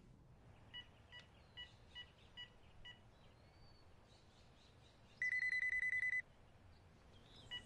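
A cordless phone: about six short keypad beeps as a number is dialled, then a few seconds later one ring of about a second, a fast electronic warble, from the receiving handset.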